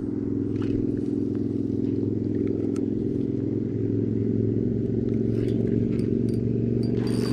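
An engine running at a steady speed, with a few light clicks and knocks over it.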